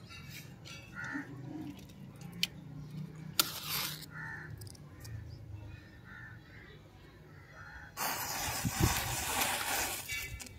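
A row of match heads flaring up one after another, a sudden loud hiss of burning matches starting about eight seconds in and lasting a couple of seconds.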